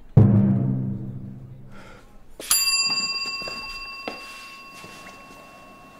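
A sudden low, deep tone at the start, fading over about two seconds. Then, about two and a half seconds in, a small bell is struck once and rings on with a slow fade. It is the speed-dating bell that signals the round is over.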